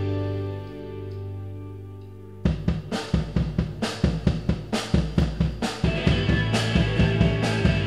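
Live rock band on electric guitar, bass and drum kit: a held chord rings out and fades, then about two and a half seconds in the drums come in suddenly with a steady beat, bass and guitar playing along.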